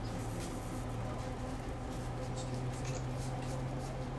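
Hands rolling a cigar of tobacco leaves on a wooden board: soft, irregular rubbing and rustling of the leaf under the palms, over a steady low hum.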